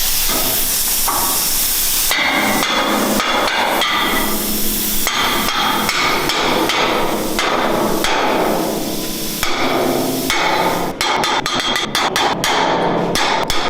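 Hammer blows on metal, struck again and again, each one ringing. The strikes come faster near the end, after a steady rushing noise in the first two seconds.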